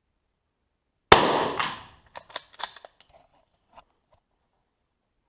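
A single handgun shot about a second in, echoing and dying away over roughly a second, followed by a few small clicks and knocks.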